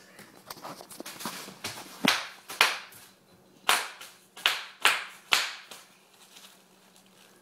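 Plastic bubble wrap popping as a toddler stands on it and presses it with his hands. A spatter of small crackles comes first, then six loud, sharp pops, each alone.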